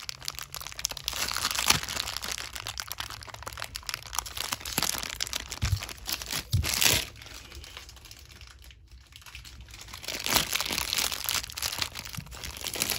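Thin clear plastic packaging bag around a Beyblade part crinkling and crackling as fingers work it open. It goes quieter a little past the middle, then the crinkling picks up again.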